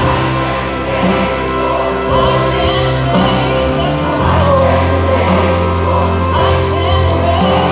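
Large mixed choir singing a Christian worship song over instrumental accompaniment with a steady bass line.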